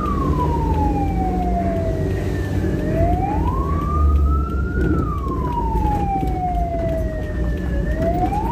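Ambulance siren in a slow wail, each rise taking about two seconds and each fall about three, over the low rumble of the moving vehicle.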